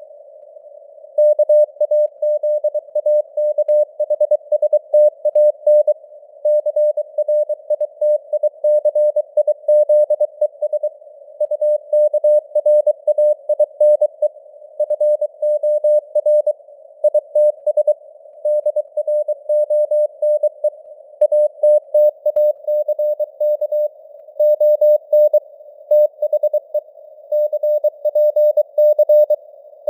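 Morse code sent at about 23 words per minute: a single mid-pitched beep keyed on and off in dots and dashes, grouped into letters and words with short pauses between them. Under it runs a narrow band of hiss, simulating a radio receiver's noise.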